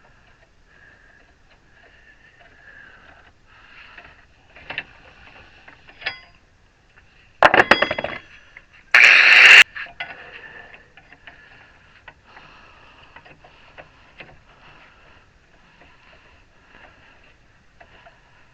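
Steel parts of a hand-built lifter being handled: a few light clinks and knocks, then about halfway through a loud metal clank that rings, followed a second later by a short harsh burst of noise lasting about half a second.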